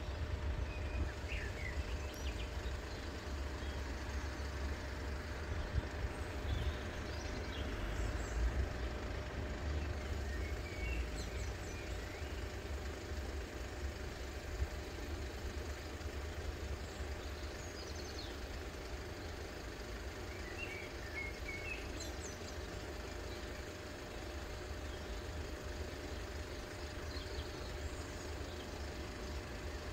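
Steady low outdoor rumble with a faint steady hum, and scattered short bird chirps.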